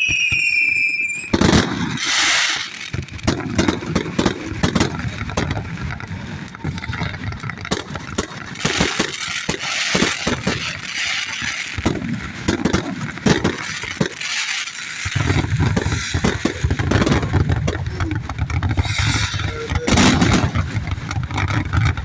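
Fireworks going off: a dense run of sharp bangs and crackles, with a falling whistle in the first second. A steady low rumble joins about two-thirds of the way through.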